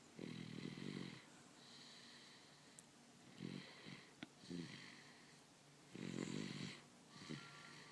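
Soft little snores: a rattling snore on each in-breath, about every two to three seconds, with breathy out-breaths between.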